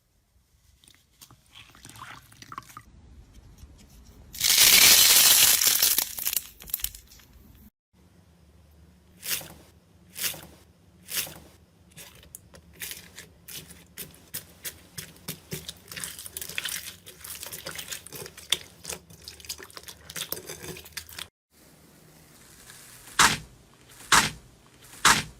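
Slime being squeezed and stretched by hand: a loud wet rush about four seconds in, then a run of short crackling pops and clicks, with a few louder snaps near the end.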